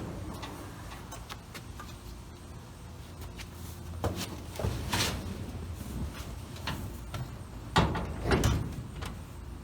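Workshop handling noises: scattered knocks and clunks over a steady low rumble, with the loudest pair about four to five seconds in and another pair near the end.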